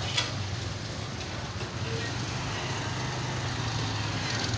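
Motor vehicle engine idling with a steady low hum, under general street noise, with a short sharp knock just after the start.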